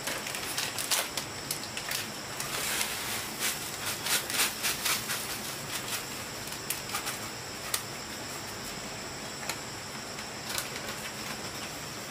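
Insects trilling steadily in the background, with many light clicks and knocks through the first eight seconds or so, thinning out after that.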